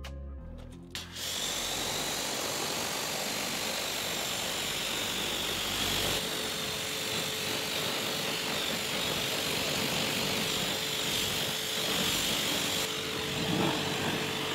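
Pressure washer running, its jet spraying water onto a car's alloy wheel and tyre: a steady hiss that starts about a second in as music fades out, with a faint steady hum joining about halfway through.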